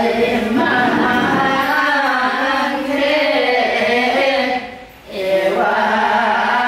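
Voices singing a melody with long, held, wavering notes, breaking off briefly about five seconds in before starting again.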